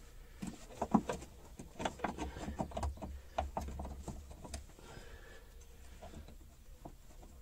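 Irregular light clicks and taps, busiest in the first half, as a nut is fitted by hand onto the top stud of a rear coilover shock absorber through the strut tower.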